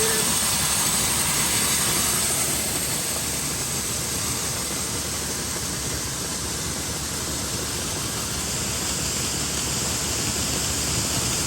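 John Deere S660 combine running during corn harvest: a steady, even rushing noise of engine and machinery.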